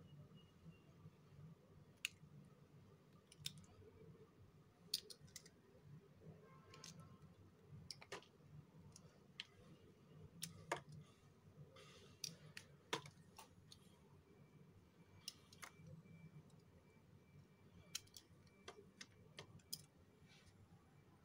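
Dry bar soap being cut with a small metal blade: about fifteen crisp snaps and cracks at irregular intervals as chips break off, over soft scraping.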